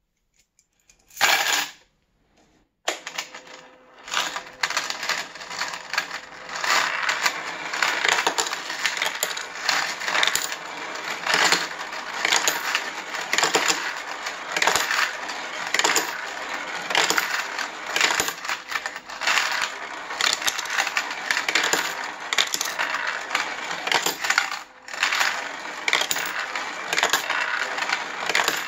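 Coins clattering through a motorised 3D-printed plastic coin sorter: the turning drum lifts the coins and drops them onto the sorting rail, where they slide and fall into their tubes, in a steady rattle of clinks and clicks over the faint hum of the small electric motor. There is one short clatter about a second in, then a brief pause before the continuous rattling starts.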